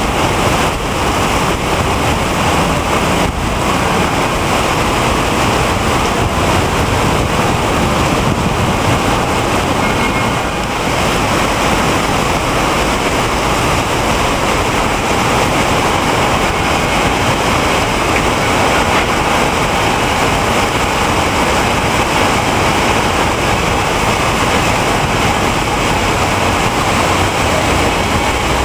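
Heavy rainstorm water rushing and pouring in a steady, loud, even roar of noise.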